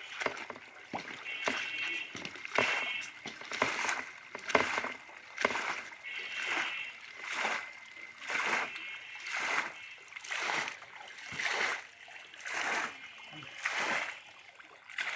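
Water splashing and sloshing in regular surges about once a second as a manual tube-well pipe is worked up and down in water by a bamboo lever to sink it into the ground.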